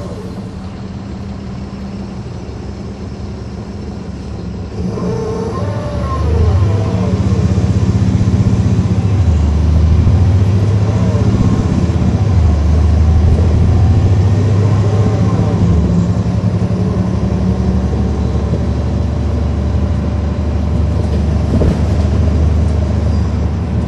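Caterpillar C13 ACERT diesel engine of a 2009 NABI 40-SFW transit bus, running steadily and then pulling harder from about five seconds in. The engine note steps several times as the ZF six-speed automatic transmission shifts, and a drivetrain whine rises and falls in pitch with road speed.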